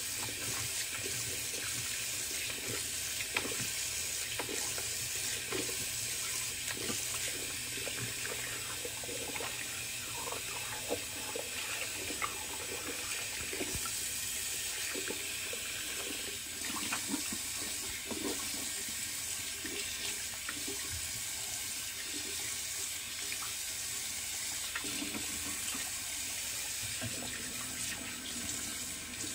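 Tap water running steadily into a sink, with small intermittent splashes as water is scooped up to rinse the face after a shave.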